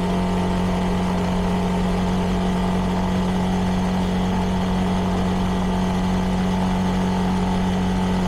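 CFMoto 300NK's single-cylinder engine through its stock exhaust, running at a steady, unchanging engine speed.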